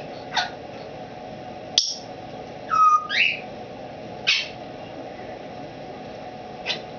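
Timneh African grey parrot giving about five short whistled calls, most of them quick downward sweeps, with a sharp click about two seconds in and a two-note whistle whose second note rises a little after that.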